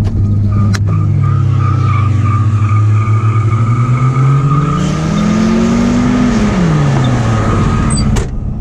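Holden VS Commodore's engine revving as the car slides with its tyres squealing. The engine note climbs about halfway through and drops again near the end, and a sharp knock comes just before the end.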